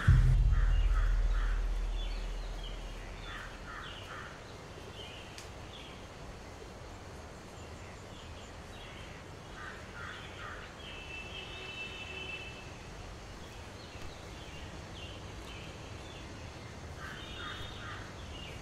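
A deep low boom at the start, fading away over about three seconds, followed by outdoor ambience with birds calling in short groups of three or four quick notes, now and then.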